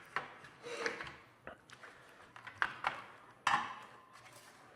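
Grille insert being slid and worked into a truck's front grille: a series of short knocks and clicks with a few brief scrapes, the loudest knock about three and a half seconds in.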